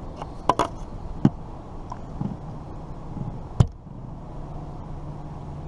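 Several sharp knocks and taps over a steady low hum, the loudest about three and a half seconds in.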